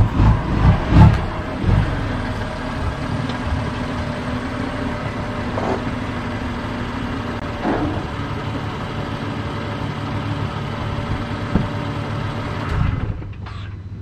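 BMW F80 M3's twin-turbo inline-six running, with a few loud uneven pulses in the first two seconds, then settling to a steady idle. The sound drops away near the end.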